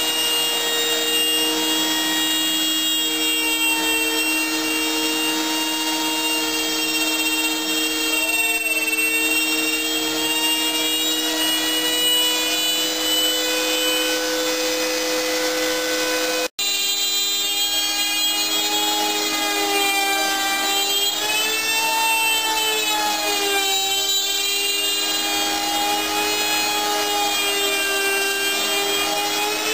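Homemade CNC router running and cutting MDF: a steady whine with a rasping cutting noise, its pitch wavering up and down in the second half as the machine moves. The sound drops out for an instant just past halfway.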